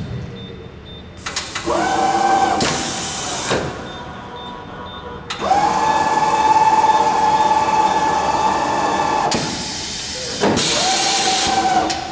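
Corghi Artiglio Master Code tire changer running its automatic cycle: three runs of a motor whine that climbs quickly to a steady pitch and holds, the middle run about four seconds long, each with a rush of air hiss.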